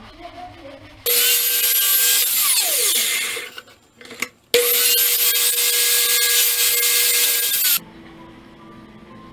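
Electric miter saw running at full speed cutting PVC pipe, in two loud stretches: the first ends with the blade winding down in a falling whine, and the second cuts off suddenly.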